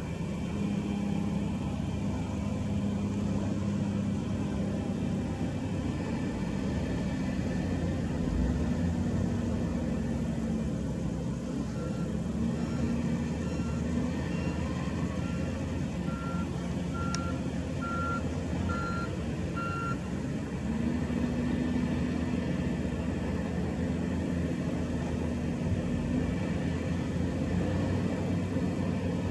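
Hitachi ZW310 wheel loader's diesel engine running and revving up and down several times as it works. In the middle a reversing alarm beeps about once a second for several seconds, getting louder.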